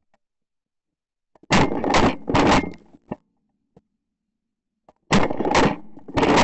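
Shotgun firing three quick shots in about a second, then another three-shot string about three and a half seconds later.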